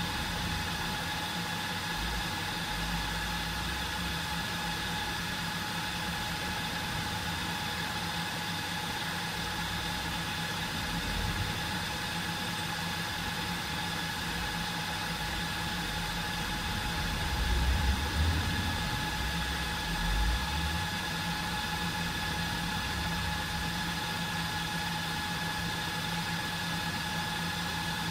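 HP ProLiant DL380p G8 rack server's cooling fans running during boot: a steady whir with a constant high whine and a low hum. A few low bumps come about two-thirds of the way through.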